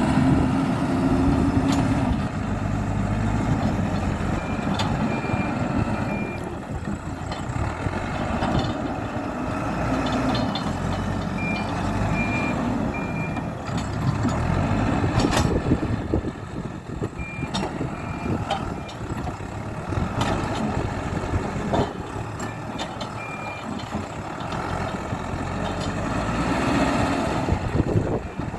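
Hidromek 102S Supra backhoe loader's diesel engine running under load as it pushes earth, with a reversing alarm beeping in short runs every few seconds and scattered sharp clanks.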